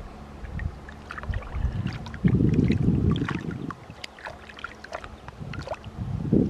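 Shallow river water splashing and sloshing as hands swish a fish and tomatoes about in a submerged wicker basket, with many small splashes and drips. A louder low whoosh comes a couple of seconds in and lasts about a second and a half.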